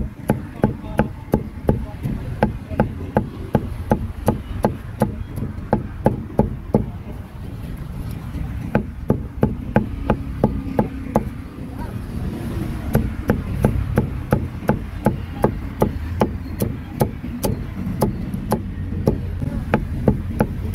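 Cleaver chopping grilled meat on a chopping block: a steady run of sharp strikes, about two to three a second, with short breaks about eight and eleven seconds in.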